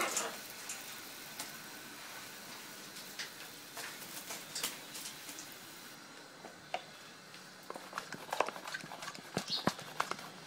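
Water spray hissing over scarlet macaws being showered, with scattered clicks and knocks; the spray cuts off about six seconds in, and a run of sharp clicks and knocks follows, busier near the end.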